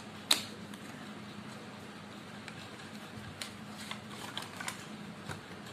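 Small cardboard box and paper packaging being handled and opened: light scattered rustles and clicks, with one sharp snap just after the start. A faint steady hum runs underneath.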